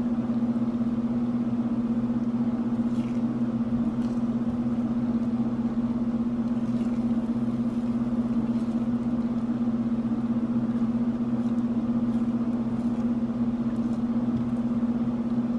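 A steady low mechanical hum, with a few faint soft scrapes of a spatula pushing scrambled eggs around a skillet.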